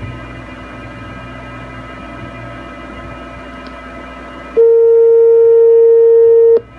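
PowerMac G4 MDD's fans and power supply running with a steady hum. About four and a half seconds in, a loud steady single-pitch beep sounds for about two seconds and cuts off with a click. This is the long tone that signals the machine is entering firmware programming mode.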